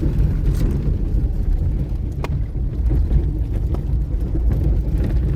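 Car engine and tyre noise heard from inside the cabin while driving: a steady low rumble, with a single light click about two seconds in.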